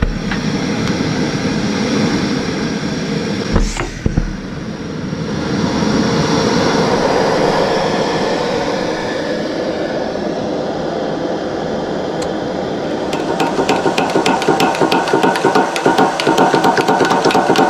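A gas burner under a small steam boiler hisses steadily after lighting, with one sharp click about four seconds in. From about two-thirds of the way through, rapid irregular knocking sets in: steam-driven brass balls hopping in glass tubes and striking guitar strings through rubber dampers meant to soften the strike.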